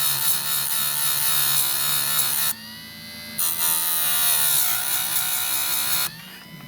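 Small electric grinder's stone grinding chainsaw chain teeth, a harsh grind in two passes with a short break between them. The grinding stops about six seconds in, leaving the motor's fainter hum.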